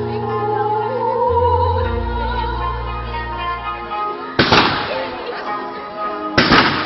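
Two firework shell bursts, about two seconds apart, the second near the end, over music with long held notes.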